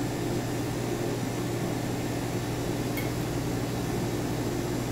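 Steady hum of kitchen machinery, a fan-like drone with a low steady tone, and one faint click about three seconds in.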